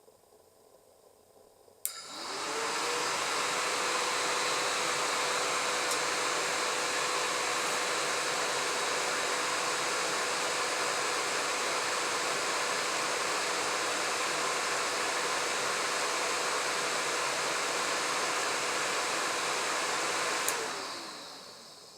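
Honda CX500's electric radiator cooling fan switching on with a click about two seconds in, spinning up quickly to a steady whirring hum with rushing air. Near the end it switches off with another click and winds down, its pitch falling.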